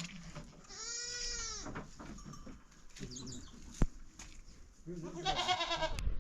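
Sheep bleating: one long arching bleat about a second in, and another wavering bleat near the end, with fainter calls between and a single sharp click near the middle.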